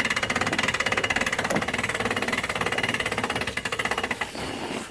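Small boat motor running steadily, a fast even pulsing that cuts off abruptly near the end.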